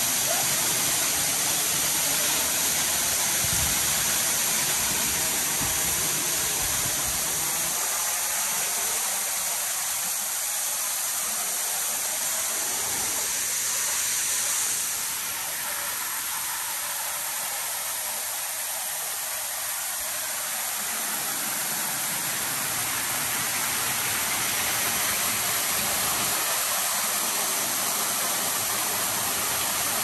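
Steady rush of a large waterfall, heard from close up on the walkway behind the falling water. The high hiss eases slightly about halfway through.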